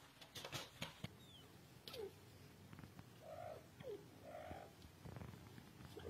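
Grey francolin hen on its nest making soft, low calls: two short falling notes and two brief purring churrs. A few faint clicks come in the first second.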